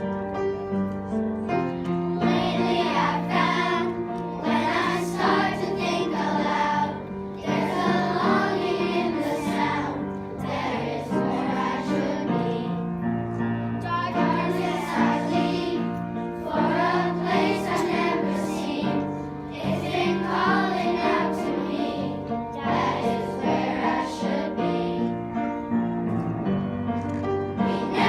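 A choir singing a song with keyboard accompaniment; the voices come in about two seconds in over held low chords.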